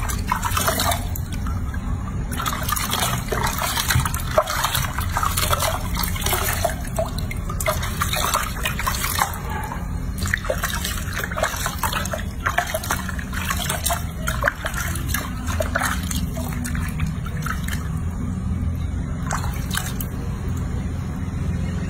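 Water splashing and dripping in a sink basin as hands wash a baby monkey, scooping and rubbing water over its fur: scattered irregular splashes over a steady low hum.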